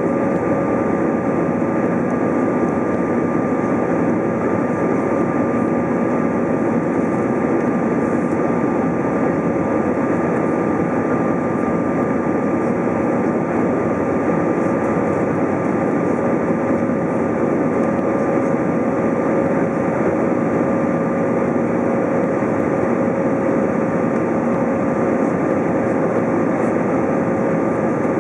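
Cabin noise of an Airbus A320 climbing after takeoff: a steady rush of jet engine and airflow noise heard inside the cabin, with a couple of constant tones running through it.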